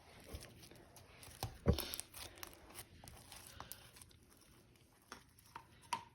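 Coated clear slime mixed with straw beads being stretched and squished by hand: scattered sticky clicks, pops and crackles, the loudest pop a little under two seconds in.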